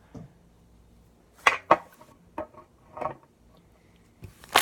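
Air bubbles popping in a jiggly slime as it is worked by hand: a few short, sharp pops, two close together about a second and a half in, another near three seconds, and a loud one near the end.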